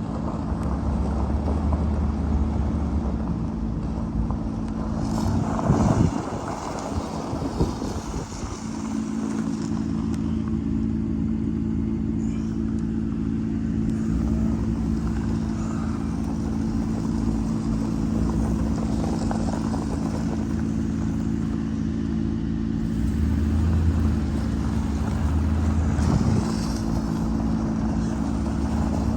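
A motor vehicle engine running steadily, a constant low hum with a rumble under it.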